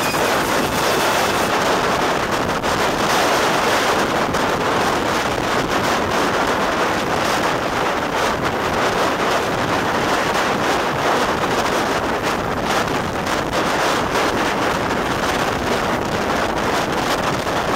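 Steady wind rushing over a microphone held out of the window of a moving steam-hauled train, with the train's running noise underneath.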